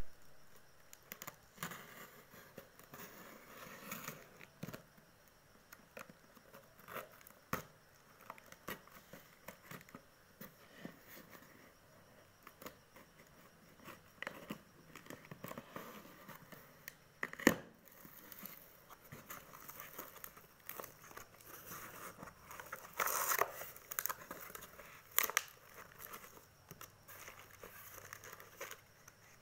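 Packing tape on a cardboard parcel being slit with a small blade and pulled open: scattered scratching, crinkling and tearing noises with irregular clicks. One sharp click comes about seventeen seconds in, and louder rustling follows around twenty-three seconds.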